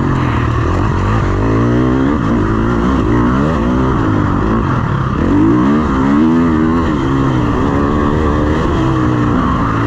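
KTM 350 SX-F motocross bike's single-cylinder four-stroke engine being ridden hard, its revs rising and falling several times as the throttle is opened and closed.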